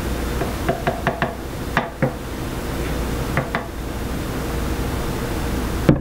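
Plastic Vitamix blender container tapping and clinking against a stainless steel tumbler while thick smoothie is poured and shaken out: a cluster of light knocks about a second in, and a few more around two and three and a half seconds. Near the end the container is set down on the countertop with a louder knock. A steady low background noise runs underneath.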